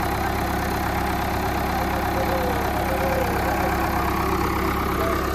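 Preet tractor's diesel engine running steadily at low revs.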